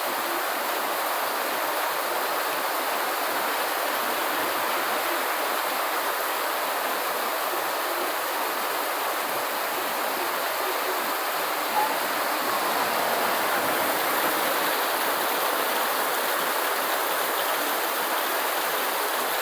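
Steady rain falling, an even, unbroken hiss, with a single faint tick a little past the middle.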